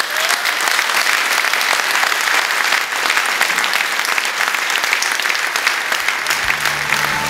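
Audience in a hall applauding steadily, a dense patter of many hands clapping. Music comes in underneath near the end.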